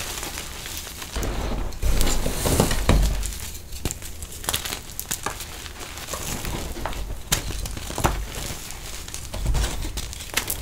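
Hands crushing and crumbling reformed gym chalk: gritty crunching with many small crackles as chunks break and powder falls between the fingers, with heavier squeezing thuds about two seconds in and again near the end.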